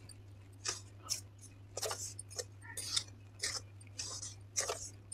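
A wooden spatula stirring dry flour roasting in ghee in a metal kadai: short scrapes against the pan about twice a second.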